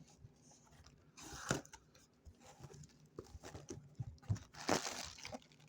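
Bubble wrap and plastic packaging crinkling and tearing as it is handled, with two louder rustling bursts, about a second in and near the end, and small handling clicks between.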